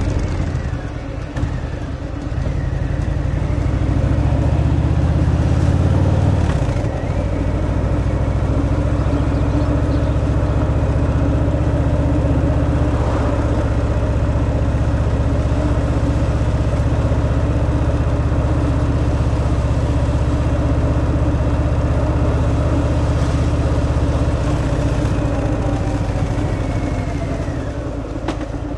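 Harley-Davidson Fat Boy's Milwaukee-Eight 114 V-twin engine running through its stock exhaust while riding. It pulls harder for the first few seconds, drops in engine speed about seven seconds in, then runs steadily and eases off near the end.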